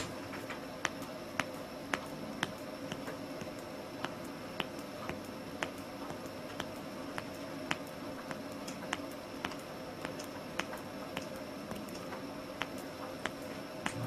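Middle-finger joints being cracked again and again, each a single sharp pop, about two a second at an even pace, over a faint steady background hum.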